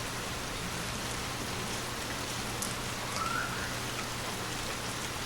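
Gentle rain falling steadily, with a few separate drops ticking now and then.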